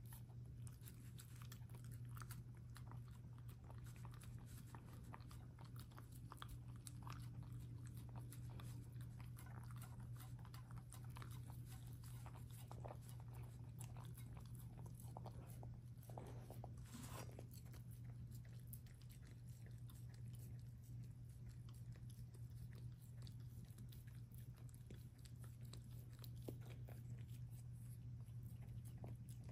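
Small dog eating soft food from a stainless steel bowl: faint chewing and lapping with many small clicks, over a steady low hum.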